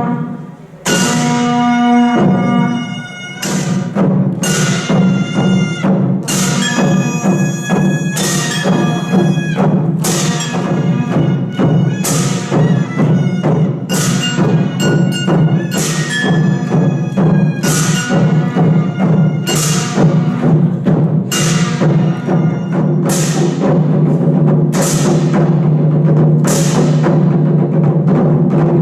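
Korean pungmul percussion ensemble playing: sharp, ringing metal strikes about once a second over a dense, steady drumming.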